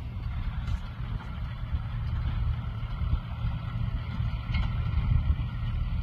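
Farm tractor engine running steadily as it pulls a hay rake, growing a little louder as it comes closer.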